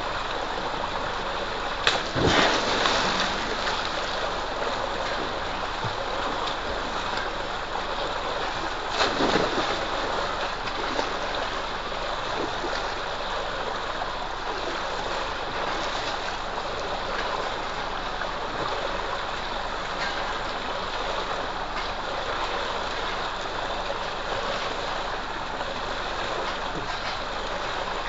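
Water gushing steadily from a pipe into a concrete tank of water. A loud splash about two seconds in, as someone jumps into the tank, and another splash about nine seconds in.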